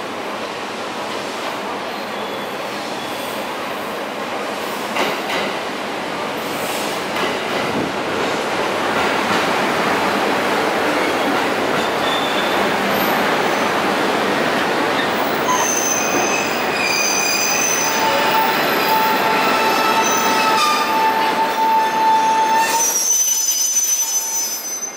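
JR East 701-series electric train (1000 and 1500 sub-series coupled) pulling into the platform, its wheels and running gear rumbling as the cars pass. From about the middle on, the brakes squeal in several steady high tones as it slows. The running noise drops away near the end as the train comes to a stop.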